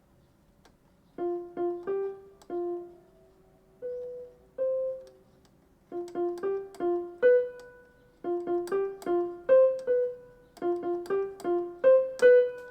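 Yamaha PSR-E363 portable keyboard played by hand: a simple single-note melody in short phrases with brief pauses between them, starting about a second in.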